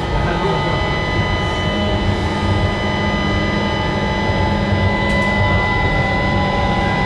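Copenhagen Metro driverless train running at speed, heard from inside the car: a steady rumble of wheels on the rails with a steady high-pitched whine over it.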